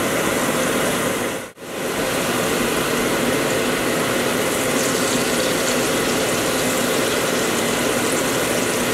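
Battered white perch fillets deep-frying in hot oil: a steady, loud, crackling sizzle, with one brief dropout about a second and a half in.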